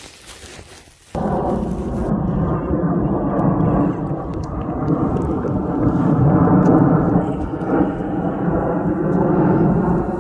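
Low, loud rumble of a four-engine military jet transport, a C-17 Globemaster III, flying overhead. The rumble starts suddenly about a second in and holds steady.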